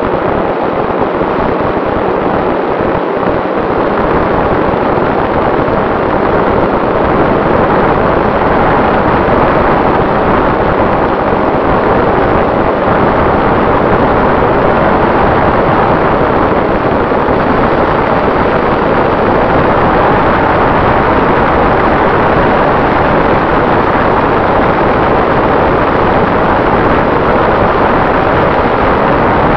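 Wind rushing over the onboard camera microphone of a Durafly Tundra RC plane in flight, loud and steady, with a faint steady electric motor and propeller tone under it. The rush grows louder a few seconds in as the plane picks up speed.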